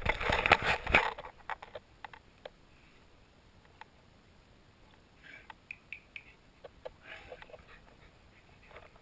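A Shetland sheepdog and a Rhodesian ridgeback play-fighting right at the camera. There is a loud rustling scuffle of fur and bodies against it in the first second, then scattered light clicks and a few short dog grumbles and snuffles about halfway through and again near the end.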